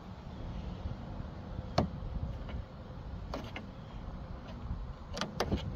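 A few sharp clicks and taps of small plastic and metal latch parts as a tool works a plastic clip onto a tailgate latch rod. The clicks come singly about two and three and a half seconds in, then two or three close together near the end, over a steady low rumble.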